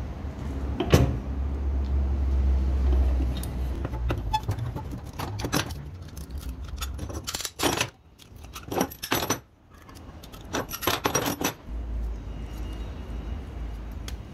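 Steel C-clamps being unscrewed and pulled off a freshly glued knife handle and set down on a wooden bench: scattered metallic clinks and knocks, thickest about eight to eleven seconds in.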